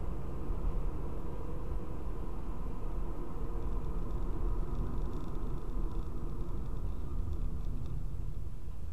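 Steady low rumble of a car driving at road speed, heard from inside the cabin: tyre and engine noise at an even level.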